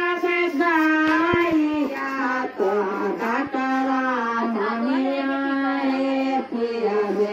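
A single high voice singing a slow melody in long, held notes.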